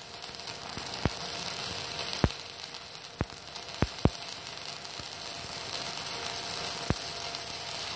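Stick-welding (MMA) arc burning an electrode from a MOSFET inverter welder set to maximum current: a steady crackling sizzle with six irregular sharp pops.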